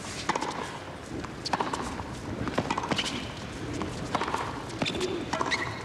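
Tennis rally on a hard court: rackets strike the ball and the ball bounces, in sharp knocks about once a second as the ball goes back and forth.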